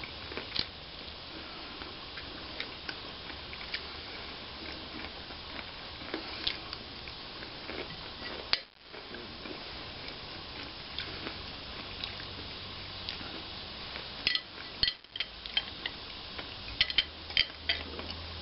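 Chopsticks and a fork clicking and scraping on a plate, scattered light taps over a steady hiss, with a quicker run of clicks near the end.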